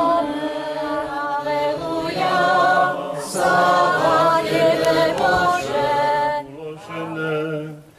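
A small group of voices singing unaccompanied Greek Catholic liturgical chant in sustained phrases, with a short break about six and a half seconds in.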